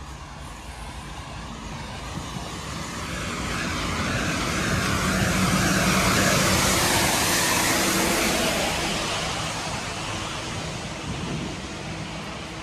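A lorry drives past on a wet road: its engine and the hiss of its tyres on wet asphalt swell to a peak about halfway through, then fade as it goes by.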